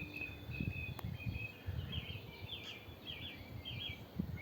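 Birds singing: a run of short, evenly spaced whistled notes, then four quick warbling phrases about two seconds in, over a low, uneven rumble.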